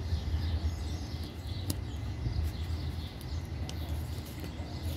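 Outdoor background with no speech: a steady low rumble, faint bird chirping, and two light clicks, about a second and a half in and again near four seconds.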